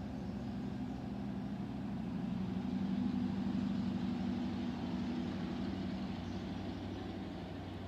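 An engine running steadily nearby, a low hum that swells about three seconds in and then slowly fades.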